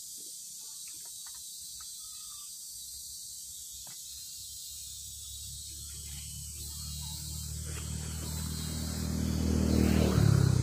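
A low engine hum grows steadily louder over about five seconds until it is the loudest sound, then cuts off abruptly near the end. A steady high insect hiss runs underneath.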